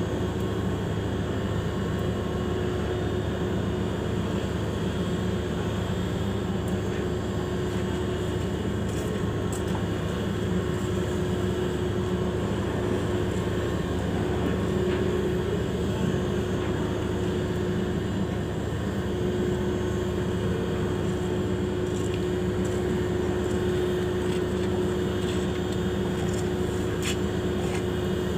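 Large ship's machinery running with a steady low drone and a constant humming tone.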